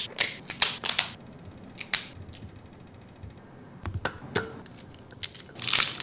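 Dungeness crab leg shell cracking in a metal crab cracker: a quick run of sharp cracks and snaps in the first second, then a few scattered clicks and snaps.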